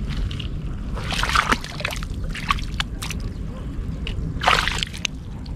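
A hand splashing and sloshing in a shallow pool of muddy water while groping in the mud for an eel's burrow. There are three short bouts of splashing: about a second in, around the middle and near the end.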